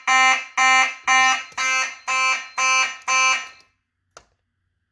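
Simplex 2903-9001 fire alarm horn with its 9838 horn unit, sounding in short, even pulses of a buzzy horn tone, about two a second. It stops about three and a half seconds in as the alarms are silenced, and a single click follows.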